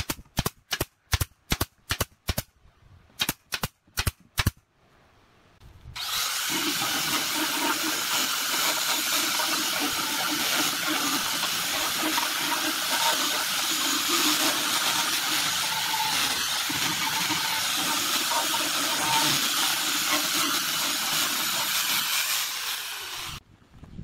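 A nail gun firing about a dozen shots in two quick runs into pine boards. Then an angle grinder with a sanding disc runs steadily for about seventeen seconds, sanding a pine board top, and stops near the end.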